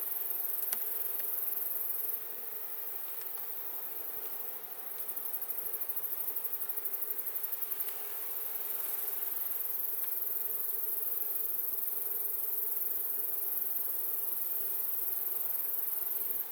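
A colony of honeybees humming steadily around an open hive, the massed buzz of many bees.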